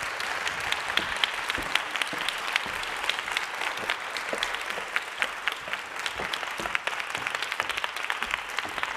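Audience applauding: a steady wash of many hands clapping, building just before and holding through to the end.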